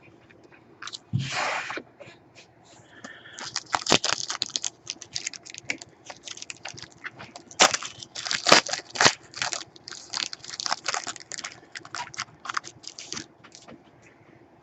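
A trading-card pack wrapper torn open about a second in, followed by a long run of crinkling, crackling and sharp clicks as the cards are handled and slid against one another.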